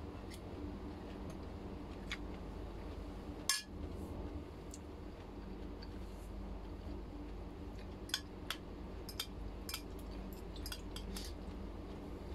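Metal fork clinking and scraping against bowls while eating: scattered light clinks, the sharpest about three and a half seconds in and a quick run of them near the end, over a steady low hum.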